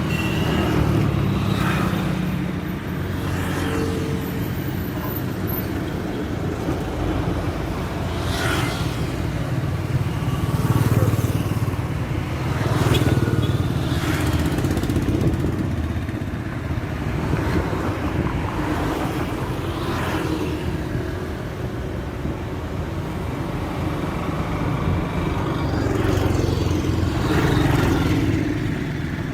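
Highway traffic: a steady low rumble of engines and tyres, with vehicles passing by every few seconds, each a rising and falling swish.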